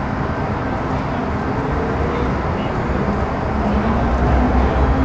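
Metro Cammell M-Train EMU with GEC GTO chopper traction control running in the tunnel, heard inside the carriage: steady running noise with a faint pitched whine that rises slowly as the train gathers speed, growing louder over the few seconds.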